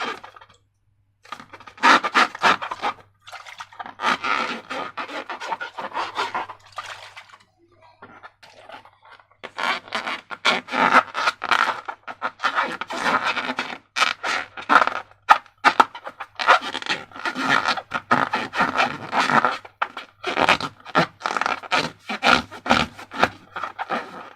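Slime being squeezed and worked by hand, giving sticky, crackling squelches in bursts with short pauses.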